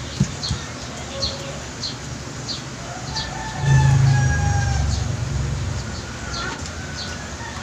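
Bird calls: short high chirps repeating about twice a second, and one long held call lasting a few seconds near the middle. A low hum, loudest around the middle, sounds under the long call.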